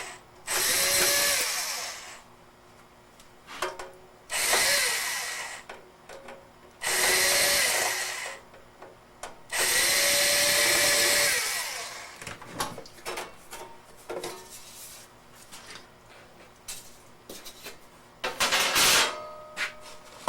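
A small power drill-driver running in four short bursts of one to two seconds each, its motor spinning up to a steady whine each time, as it drives screws on the radio's case. Light clicks of small parts being handled follow, and there is one more brief burst near the end.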